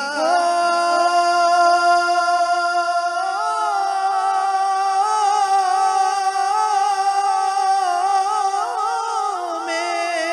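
A male naat reciter's voice holding one long, drawn-out sung note with ornamented wavering turns. It steps up in pitch about three seconds in and comes back down near the end.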